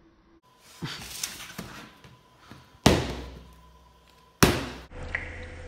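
Plastic canister flipped onto a ping-pong table, landing with a few hard knocks: a lighter one about a second in, then two loud ones about a second and a half apart.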